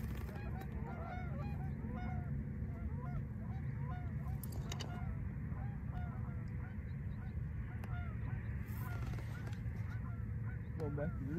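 A flock of geese honking: many faint, short calls overlapping throughout, over a steady low rumble.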